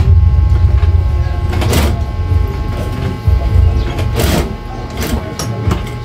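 Juki industrial sewing machine stitching in a long run, stopping briefly about three seconds in, then running again in a short burst before winding down. There are two brief scuffs, about two seconds apart.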